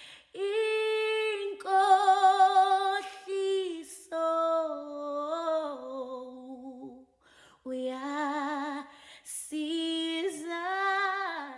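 A woman singing a slow worship song without accompaniment. She holds long notes with vibrato, in phrases separated by short breath pauses.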